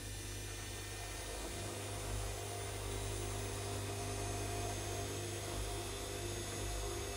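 Bosch Classixx 6 front-loading washing machine tumbling a pillow in its wash: the drum motor hums steadily over a hiss, the low hum growing stronger about a second and a half in.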